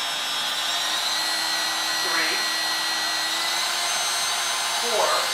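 DeWalt compact router on a Shapeoko 3 CNC running with a steady whine, its speed dial being stepped up through the low settings; the pitch steps up a little about a second in. A short swooping sound comes twice, about two and five seconds in.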